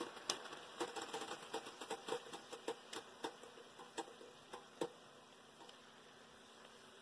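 Metal tongs clicking and tapping against the side and bottom of a cooking pot while a wad of paper towel is dabbed into the grease of browned ground venison. The clicks come irregularly, several a second, and thin out about five seconds in.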